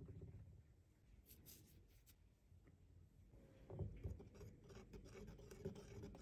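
Faint sound of dry flour being poured into a ceramic bowl, then, from a little over halfway through, a wire whisk stirring through the dry flour with rapid rubbing and scraping strokes against the bowl.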